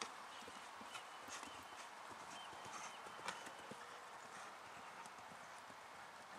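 Faint hoofbeats of a horse cantering on a sand arena surface, soft and uneven, with an occasional sharper knock, the clearest about three seconds in.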